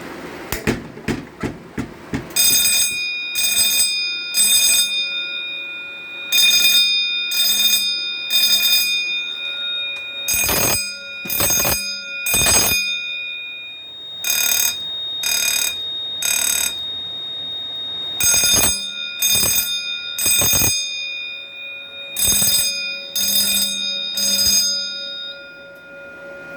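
Fire alarm bell ringing in code 3 (temporal-three pattern): three rings, a pause, and repeat, six rounds in all, set off by a manual pull station that clicks in the first couple of seconds. A steady high beep runs under much of the ringing.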